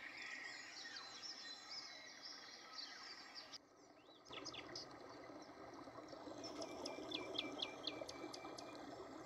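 Songbirds singing: scattered chirps, then in the second half a quick run of about eight short, falling notes. The sound drops out briefly a little over a third of the way in.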